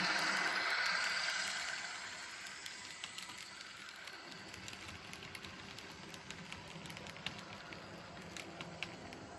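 The sound decoder of an N-scale Piko class 221 diesel locomotive model playing its diesel engine sound, which fades over the first two seconds and leaves a faint steady hum with scattered small clicks of the model running on its track.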